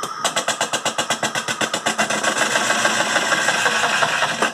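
Spin dryer's motor and drum running, with a rapid regular ticking about ten times a second that blends into a steady whir, then cuts off suddenly near the end.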